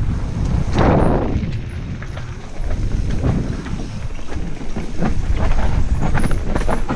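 Mountain bike descending a rough singletrack: tyres on dirt and stones with a steady rumble, and the bike rattling and knocking over bumps, with a heavier jolt about a second in.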